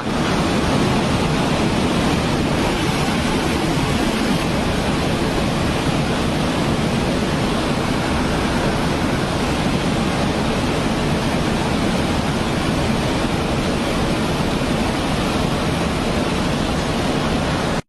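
Fast-flowing floodwater rushing in a steady, loud roar.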